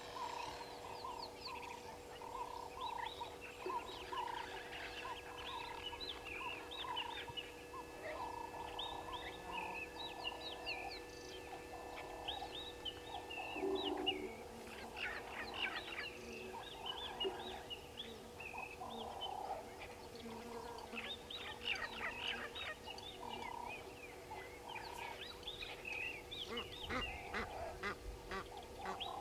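Egyptian geese calling: a steady run of hoarse honks, roughly one or two a second, with many short high peeps and chirps over them and a faint steady hum underneath.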